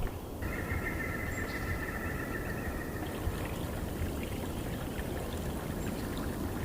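Water trickling and running in an even splashing hiss, typical of meltwater or rain runoff. A steady high tone is held over it for the first few seconds.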